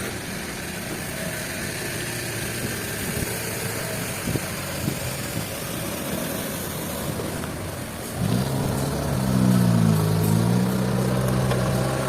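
Motor vehicle engine running, with a few light knocks over a steady background noise. About eight seconds in it becomes louder and its pitch rises and falls as it revs.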